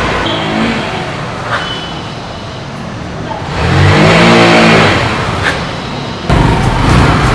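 Hero XPulse 200 motorcycle's single-cylinder engine running and revved once about halfway through, the pitch rising and falling back. Near the end the sound jumps abruptly louder.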